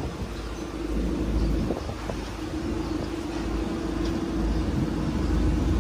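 Car engine running, a steady low rumble with a hum over it for the first few seconds.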